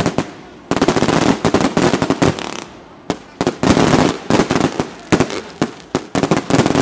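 Fireworks going off in dense, rapid volleys of bangs and crackles, with brief lulls about half a second in and near three seconds in.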